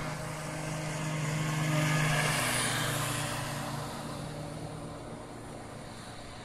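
RC powerboat running flat out across the water: a steady motor whine with a hiss over it, getting louder until about two seconds in, then fading as the boat runs away.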